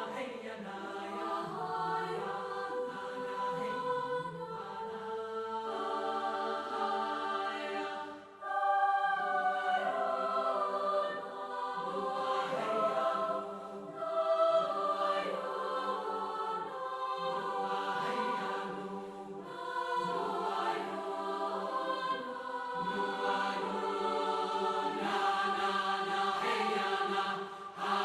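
Music with a choir chanting over held harmonies. It drops briefly about eight seconds in and comes back louder.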